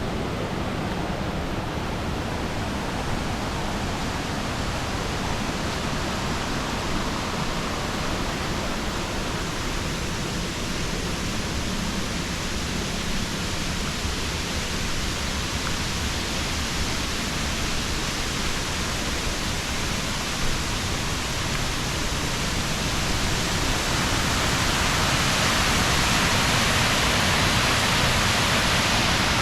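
Steady rush of falling water from a waterfall, with no break in it, growing louder and brighter near the end.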